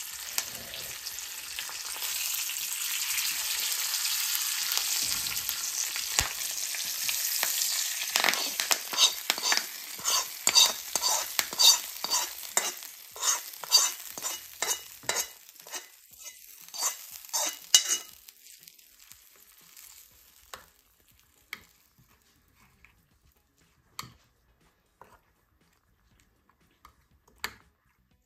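Curry leaves and cumin seeds sizzling in hot oil in a nonstick pan, a tempering for chutney. About eight seconds in, a metal spoon starts scraping and tapping against the pan in quick strokes as the tempering goes into a bowl. These stop after about eighteen seconds, leaving only a few faint clicks of the spoon stirring in the bowl.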